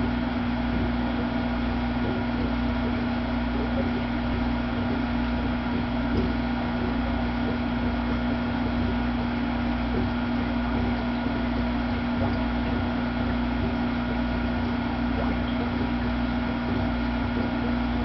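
Aquarium pump humming steadily, with a strong single-pitched buzz over a low rumble and the hiss of moving water.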